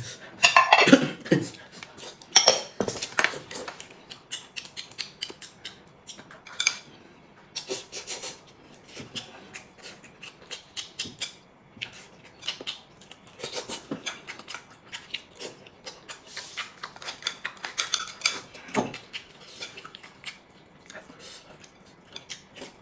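Eating from a porcelain bowl with chopsticks: irregular clicks and scrapes of the chopsticks against the bowl, with chewing and slurping. Near the start, food is scraped off a plate into the bowl.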